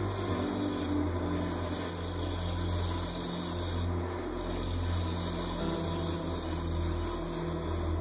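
Central Machinery wood lathe running steadily while a bowl gouge cuts the inside of a spinning segmented aspen blank, a constant low hum under a rushing cutting noise.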